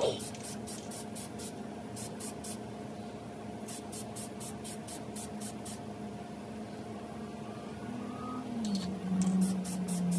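Aerosol can of matte clear coat spraying in groups of short, quick hisses, with pauses between the groups. A steady low hum runs underneath and swells near the end.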